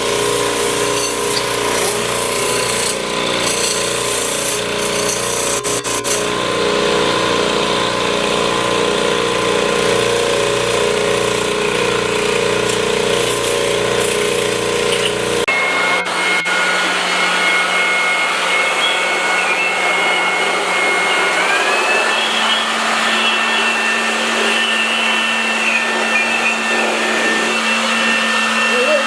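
Compressed air hissing steadily from an air blow gun, blowing out freshly honed engine cylinder bores. About halfway through the sound changes abruptly to a whistling hiss, whose whistle steps up in pitch later on.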